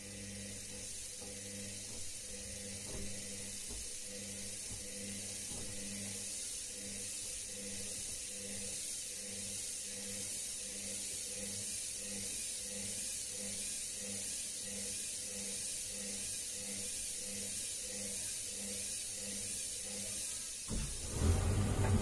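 Front-loading washing machine in its wash cycle, the drum turning laundry through sudsy water: a steady hiss over a motor hum that pulses about once a second. Near the end the sound turns suddenly louder and deeper.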